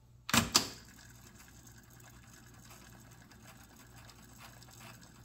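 Pioneer CT-F900 cassette deck: two sharp clicks from its transport keys about half a second in, then the quiet, steady whir of the tape rewinding toward the counter's zero point, where memory play will start playback.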